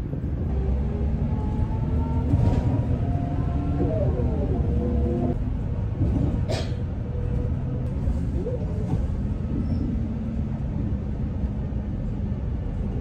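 City bus running, heard from inside the cabin: a steady low rumble with the engine's pitch rising and falling as it drives, and a sharp click about six and a half seconds in.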